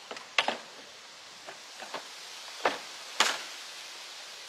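A string of short, sharp knocks and rustles, about seven in all, the loudest about half a second in and just after three seconds, from grass clippings being emptied into a paper yard-waste bag, with the mower's engine off.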